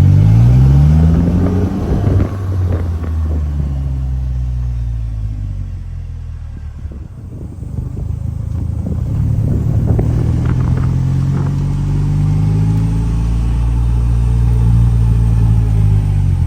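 Engine of a Polaris Slingshot three-wheeler on the road, pitch rising as it accelerates in the first two seconds, falling away as it eases off in the middle, then climbing again and holding steady.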